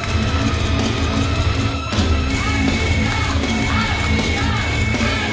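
Heavy rock music with a steady bass beat, the winner's theme after the match. About two seconds in, the music breaks briefly and vocals come in.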